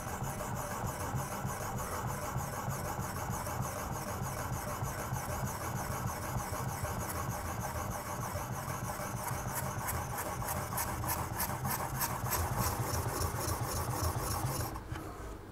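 Abrasive sharpening stone on a guided knife-sharpening system rubbing in steady strokes along a kitchen knife's edge, scraping continuously until it stops near the end. It is the characteristic sound of the stone cutting off the burr.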